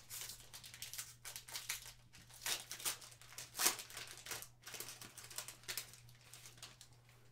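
Foil wrapper of a trading-card pack crinkling and tearing as it is ripped open, a run of irregular crackles and rustles that are loudest around the middle and thin out near the end.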